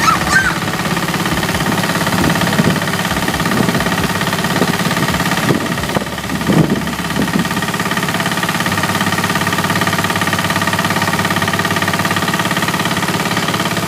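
A Pasquali 10.5 HP two-wheel tractor engine runs steadily under load, driving a small Indian stationary threshing machine through its PTO shaft. The thresher drum chops and threshes hand-fed sheaves of cereal, with irregular louder surges between about two and seven seconds in as bundles go in.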